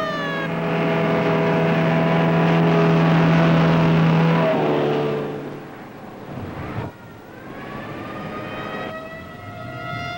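A warning siren winds down at the start, then a truck's engine is loud for about five seconds as it goes by. From about seven seconds in, a hand-cranked siren winds up again and holds a steady wail: the pre-blast warning.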